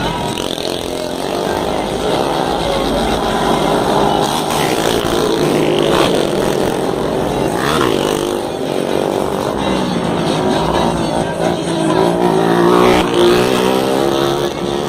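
Vehicle engines revving with loud exhausts, the pitch swinging up and falling back again and again.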